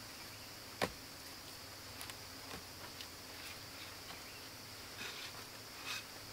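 A rope-lashed wooden pole ladder knocks sharply against a tree trunk once about a second in, then gives a few lighter knocks and rustles as it is settled. A steady high insect chorus runs underneath.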